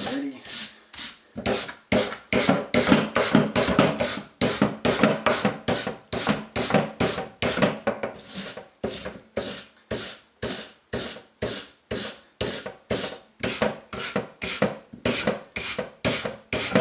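Wire brush raked repeatedly along a paintbrush's bristles, scraping off dried paint, in steady even strokes about three a second.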